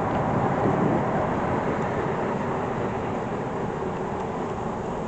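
Honeybees humming steadily from an open hive, a dense, even drone with no breaks.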